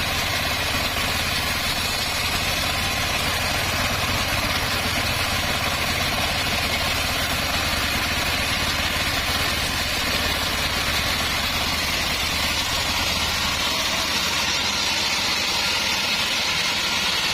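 Homemade portable bandsaw sawmill running steadily while ripping teak wood: a constant low machine hum under a bright, continuous sawing hiss.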